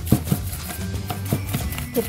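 Background music over irregular taps and scrapes of a hand whisk beating egg and sugar in a metal bowl.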